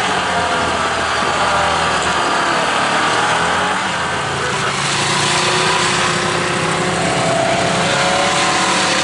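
Side-by-side UTV engine running while driving along a trail, its pitch rising and falling with the throttle.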